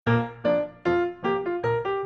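Background music played on a keyboard instrument: a run of single notes at a steady pace, about two or three a second, each struck sharply and dying away.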